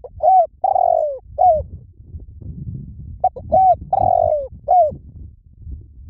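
Spotted dove cooing. It gives two phrases of four notes each, about three seconds apart: two short coos, a long coo that falls in pitch, then a short falling coo.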